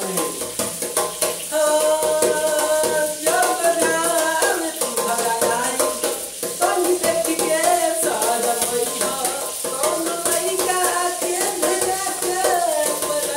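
A man singing a Bhojpuri folk song in long, bending held notes. He keeps a rapid beat with his hands on the lid of a large steel container used as a drum, which gives a tinny, rattling sound.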